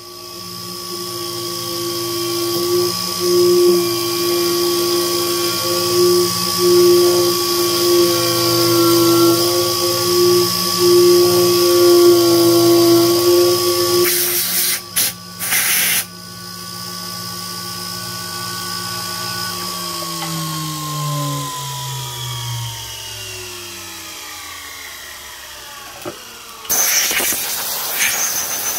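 Sherline CNC milling machine's spindle running at about 10,000 rpm with a steady whine while a carbide tool cuts into 7075 aluminium. Brief bursts of hiss come about halfway. Then the spindle winds down, its pitch falling, and near the end a hiss of kerosene-and-oil coolant mist spray starts.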